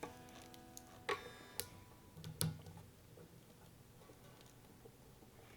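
Capo being clamped onto an acoustic guitar's neck: a few faint clicks in the first two and a half seconds, with the strings ringing faintly and dying away.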